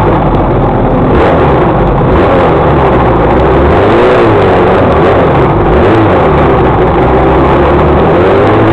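Motorcycle engine running at speed on a track, loud and close, its pitch rising and falling with the throttle, with wind rushing over a bike-mounted camera.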